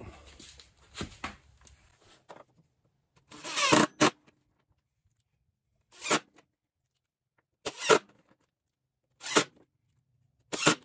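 Cordless drill driving screws into wood: five short bursts, the first and longest about three and a half seconds in, the others each a fraction of a second and spaced a second and a half or so apart.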